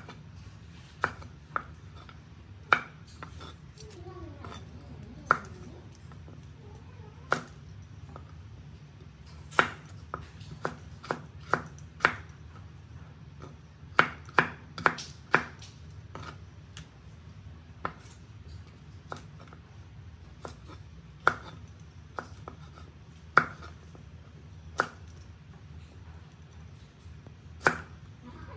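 Chinese cleaver chopping leafy green stems on a wooden cutting board: sharp, uneven knocks about once a second, with quick runs of three or four around the middle, over a low steady hum.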